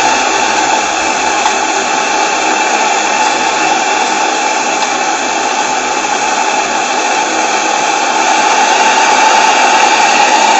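Gas burner of a model steam boiler's firebox, burning with a steady, loud rushing hiss that gets a little louder about 8 seconds in.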